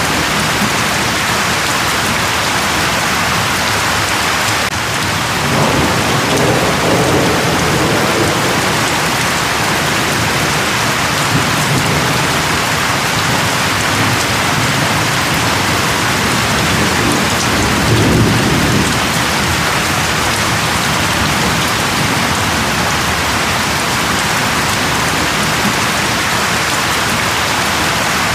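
Steady, dense rainfall, a continuous hiss of rain on surfaces. Low thunder rolls in twice, once lasting a few seconds about a fifth of the way in and once past the middle.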